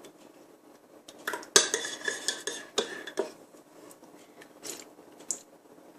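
A spoon stirring milk and honey in a glass, clinking against the glass in an irregular run. The clinks are busiest from about a second in to about three seconds in, with a few more near the end.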